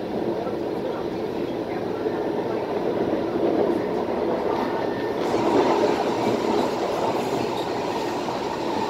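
Steady interior running noise of a Kawasaki Heavy Industries C151 metro train travelling at speed. About five seconds in it grows brighter and a little louder.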